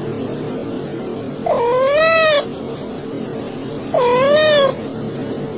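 A tabby cat meowing for food: two long, drawn-out meows about two and a half seconds apart, each rising and then falling in pitch, with the end of an earlier meow at the start. A faint steady tone runs underneath.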